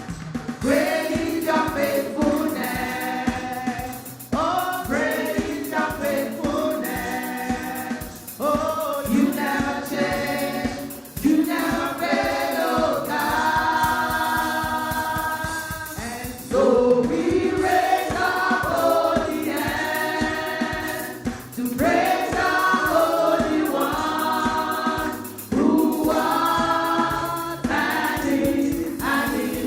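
Church praise singers and congregation singing a gospel worship song over instrumental accompaniment, in long held phrases with a steady beat.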